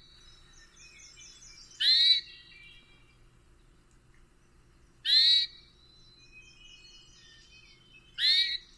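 Hermit thrush vocalizing: three loud, brief, high sweeping phrases about three seconds apart, each trailed by a fainter run of quick, higher notes.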